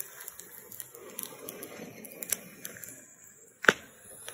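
Green-wood fire of branches crackling, with a few sharp pops, the loudest about three and a half seconds in.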